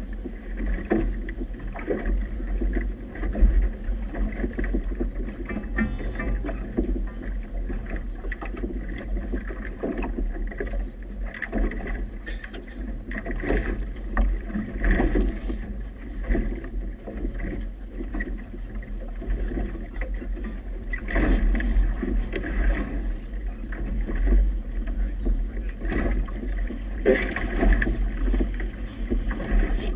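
Wind buffeting a GoPro's microphone, a low rumble, over choppy river water slapping and splashing against a small boat's hull in uneven surges as the boat rocks.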